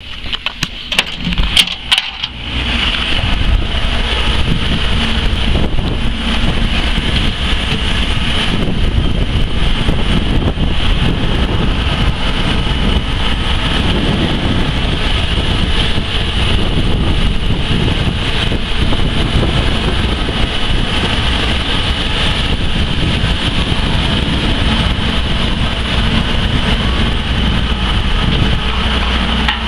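A few clicks and knocks in the first two seconds, then loud, steady city street noise with traffic going by.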